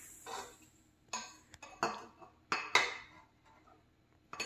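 Small bowls and a measuring cup clinking and tapping against a stand mixer's stainless-steel bowl as sugar is poured in: about half a dozen sharp taps with short rustles of pouring sugar.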